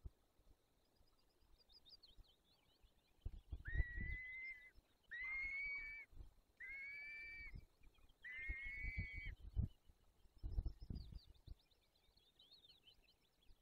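Peregrine falcon giving four drawn-out, even calls, each about a second long, in the middle of the clip, with low thumps on the microphone alongside. Faint fast high twittering is heard before and after the calls.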